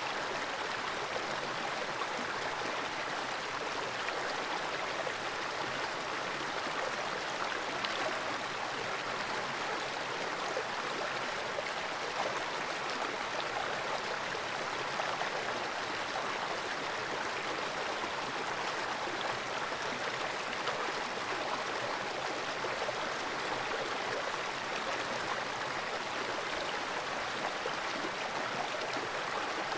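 Fast-flowing stream water rushing steadily over rocks, heard through a camera submerged in the pool.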